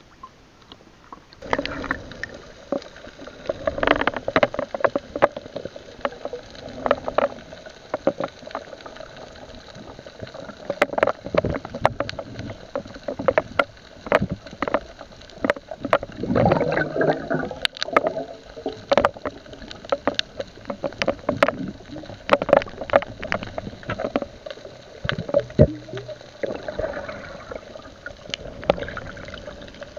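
Water sloshing and gurgling around a submerged camera, with many short sharp clicks and knocks scattered throughout. The sound starts abruptly about a second and a half in.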